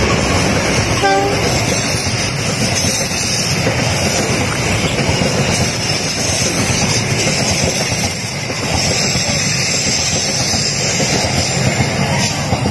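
A KAI CC 203 diesel-electric locomotive and its train of passenger coaches passing close by at speed: a steady, loud rumble of steel wheels on the rails.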